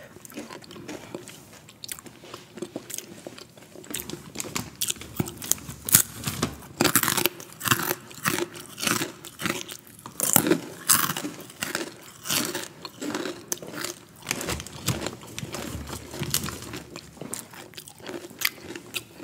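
Close-up biting and chewing of a crunchy orange snack stick: a dense, irregular run of sharp crunches that grows loud about four seconds in.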